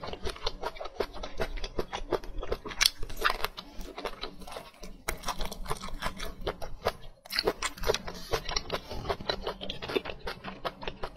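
Close-miked chewing and mouth sounds of someone eating braised meat and vegetables: a dense run of wet smacks and crunches, with a brief pause about seven seconds in.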